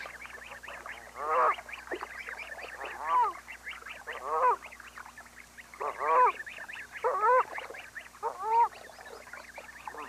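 Canada geese honking: about six separate arched calls spaced a second or so apart. Faint, rapid high peeping runs underneath.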